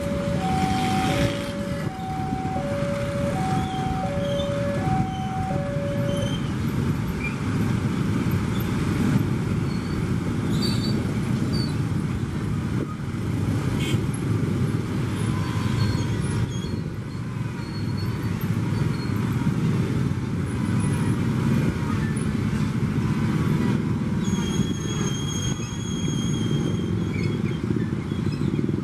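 Level crossing warning signal sounding in alternating two-note beeps for the first six seconds. Under it, the steady heavy rumble of a KAI CC 203 diesel-electric locomotive passing the crossing, with road traffic idling nearby. A thin high whine lasts a couple of seconds near the end.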